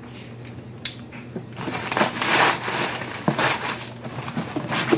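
Crumpled kraft packing paper rustling and cardboard box flaps being folded shut, in several bursts of crinkling, with a sharp click a little under a second in.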